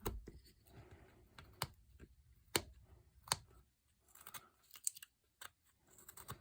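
Swiss Army knife blade cutting into basswood: sharp, irregular clicks as the blade bites and chips snap off, about one every second, with faint handling noise between them.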